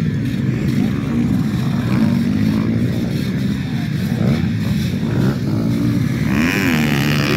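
Several motocross bikes racing, their engines revving up and down as they come down a hill and turn, the pitch rising and falling. One bike grows louder as it passes close near the end.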